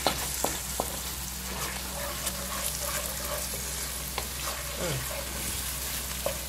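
Thick pepper, onion and dried-prawn sauce sizzling in oil in a wok as a wooden spoon stirs and scrapes through it, with scattered sharp clicks of the spoon against the pan. The sauce is frying down until dry and dark, with a steady low hum underneath.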